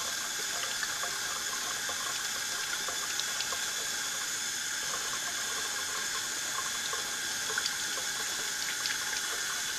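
Kitchen faucet running steadily into a stainless steel sink, the stream splashing over hands and a pistol barrel being scrubbed with steel wool. A few faint clicks come through the water noise.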